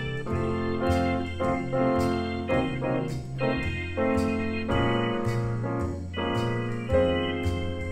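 Jazz piano on a grand piano over a walking bass line from an electric keyboard, the bass moving to a new low note about once a second, with faint steady high ticks about twice a second keeping time.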